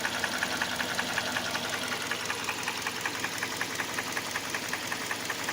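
Hyundai Elantra 1.8-litre four-cylinder petrol engine running at a steady speed with a fast, even knock tapping through its sound. This is the knock the owner hears both cold and warm, and it grows stronger as the revs rise; its cause is not known.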